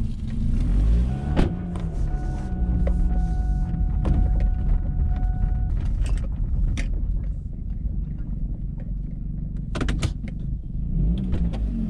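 Kia car engine running on maple pancake syrup in place of motor oil, heard from inside the cabin as the car rolls slowly; the engine's pitch rises and falls a couple of times. A thin steady high tone sounds from about a second in to about six seconds in, with a few sharp clicks.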